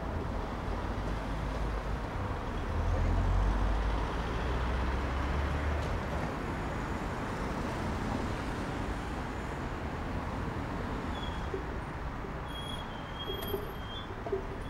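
Street traffic: cars driving past, a steady hiss of tyres and engines, with a low engine rumble loudest about three to four seconds in.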